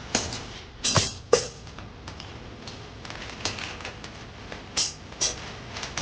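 Someone eating spicy chicken feet close to the microphone: irregular wet smacks and crunches as the feet are chewed and sucked, with a few sharper ones.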